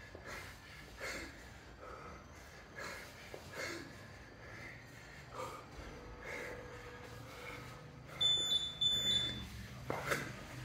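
Heavy, rhythmic breathing of a man working through 28 kg kettlebell snatches, a forceful breath about once a second. About eight seconds in, two short high-pitched electronic beeps, the loudest sound.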